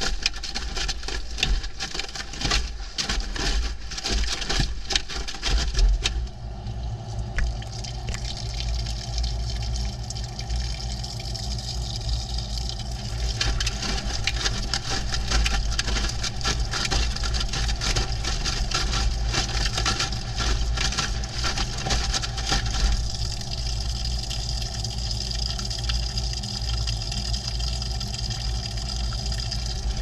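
Front-loading washing machine heard from inside the drum, through a camera tumbling with the wet laundry: clothes and water churning, with frequent knocks of things hitting the camera in the first few seconds. After about six seconds the tumbling settles into a steadier churn over a constant low hum.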